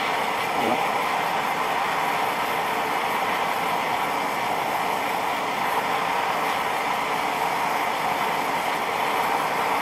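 Small box forge's gas burner running steadily, an even rushing roar, while a steel knife blade heats in it toward quench temperature.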